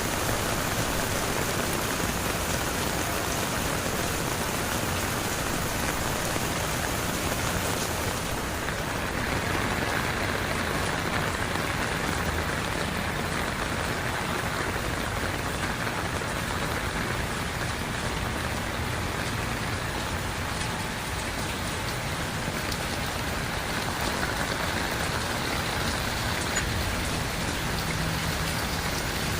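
Steady heavy rain falling and pattering on surfaces; the highest hiss thins out about eight seconds in.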